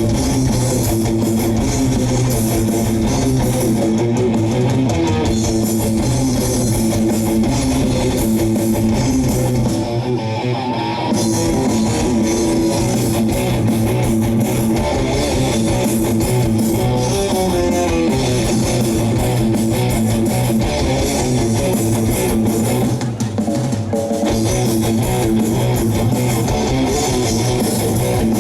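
Rock band playing live: electric guitars over bass and drums, loud and steady, with a short drop in the high end about ten seconds in.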